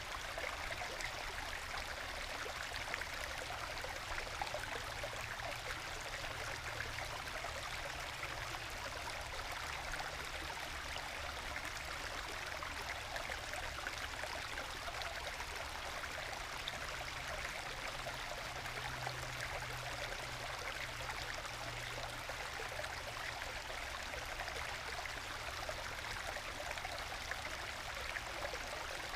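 Small forest stream trickling and gurgling over low waterfalls worn into bedrock, dropping into small plunge pools: a steady, gentle babble of flowing and falling water.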